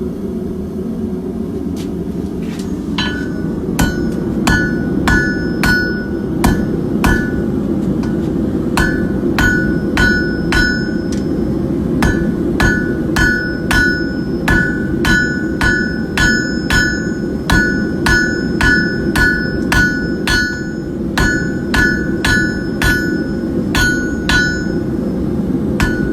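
Hand hammer striking a hot steel bar on an anvil, drawing out a point for a hook tool: steady blows at about two a second with a few short pauses, each with a clear metallic ring. A steady low rushing noise runs underneath.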